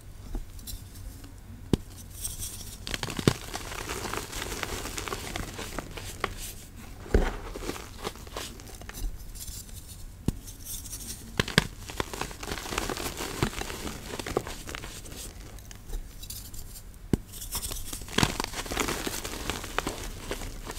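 Reformed gym chalk blocks, tinted gray with charcoal, crushed by hand: dry crunching and crumbling as chunks and powder are squeezed and rubbed between the fingers, with several sharp snaps as pieces break apart.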